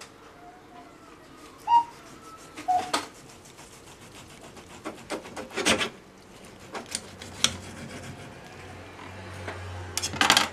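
Knife sawing through the seared crust of a roast beef on a ceramic plate: a string of uneven scraping strokes and sharp clicks, the loudest about two seconds in and near the end.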